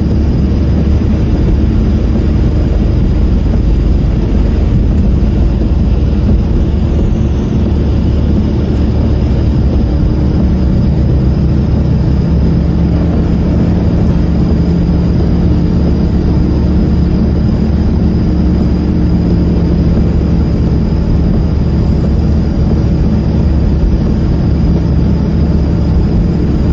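Car cabin noise while driving on a wet road: a steady low rumble of engine and tyres, with a faint steady high-pitched whine running through it. The whine is the noise the owner suspects comes from a failing part in the fuel line.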